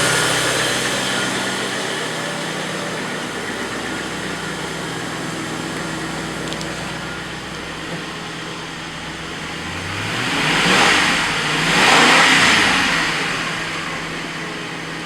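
1998 Ford Crown Victoria P71's 4.6-litre single-overhead-cam V8 idling evenly, running beautifully, then revved twice about ten seconds in before dropping back toward idle.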